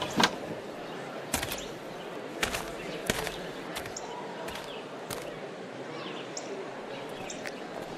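Outdoor ambience: a steady background hiss with a few sharp knocks scattered through it and faint short chirps, like birds.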